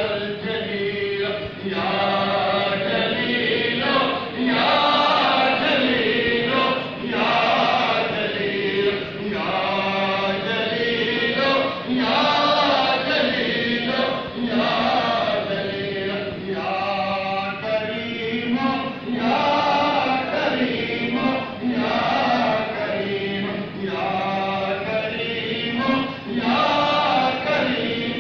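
Men's voices chanting a devotional supplication (dua) together, a melodic phrase recurring about every two seconds without a break.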